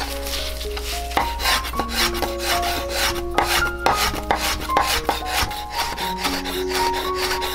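Chef's knife slicing a rolled stack of shiso leaves on a bamboo cutting board: quick, even strokes, a few a second, each tapping the board, starting about a second in. Background music plays under it.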